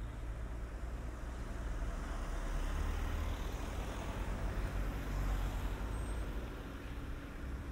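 Street traffic at an intersection: a car passing close by, its engine and tyre noise swelling over a few seconds and then easing, over a low rumble.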